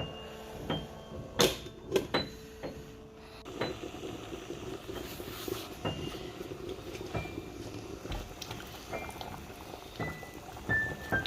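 Sharp knocks and clinks of cookware, several in the first few seconds, over faint piano music that comes back more clearly near the end.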